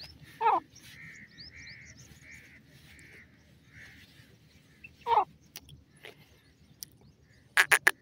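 Francolin calling: two short, loud calls that drop steeply in pitch, about four and a half seconds apart, over a row of faint, evenly spaced soft notes. Near the end a fast run of loud, clipped notes begins.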